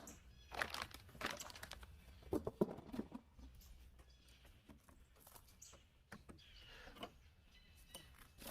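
Light handling noises: irregular clicks and knocks with a little crinkling, as parts of a cordless tool kit are handled.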